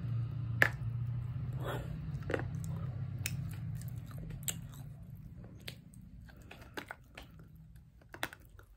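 A person biting and chewing dry lumps of Multani mitti (fuller's earth clay) close to the microphone, giving sharp, irregular crunches. Under the crunches runs a low hum that fades away over the second half.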